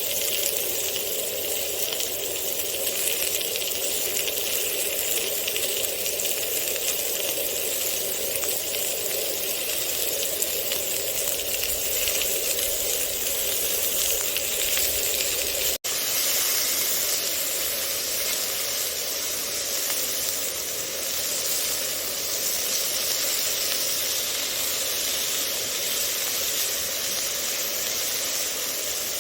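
Food frying in hot oil in a pan, a steady sizzle, with a brief dropout just past the middle.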